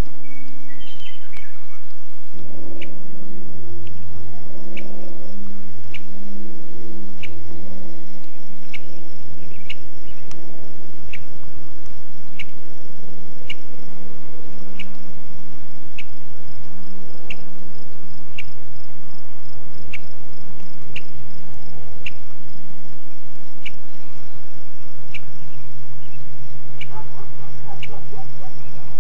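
Short high chirps from an animal, repeating about once a second over a low steady hum.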